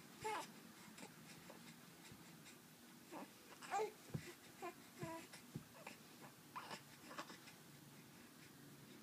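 A young baby making short cooing and babbling sounds, a handful of brief sounds that slide up or down in pitch, with a couple of soft knocks in between.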